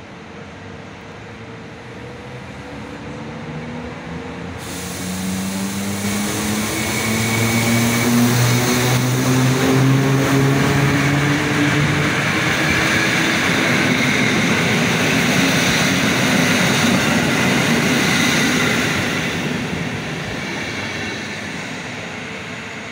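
Electric locomotive hauling a train of passenger coaches past a platform. A hum rises in pitch as the train comes by, then the steady rumble and hiss of the coaches rolling past on the rails, fading near the end as the train moves away.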